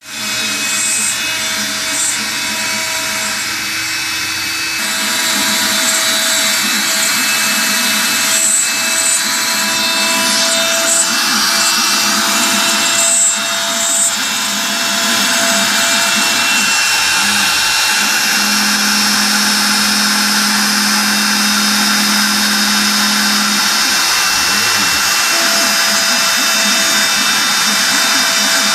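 Spindle of a home-built Mostly CNC machine running steadily as it mills, with pitched machine tones that start and stop as the machine moves.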